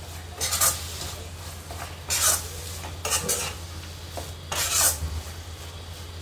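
Steel spoon stirring and scraping sweet vermicelli (seviyan) in ghee and milk around a nonstick pan, in four separate strokes about a second apart.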